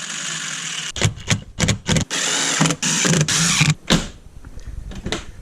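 Clicks and knocks from work on a car door and its interior trim panel, between two stretches of steady hissing noise, with a sharper knock about four seconds in.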